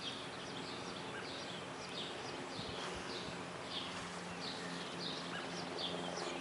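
Small birds chirping, a string of short falling notes a fraction of a second apart, over a faint steady low hum.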